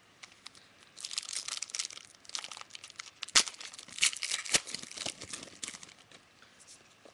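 Foil trading-card pack wrapper being torn open and crinkled by hand: a run of crackling from about a second in until near the end, with a few sharper snaps in the middle.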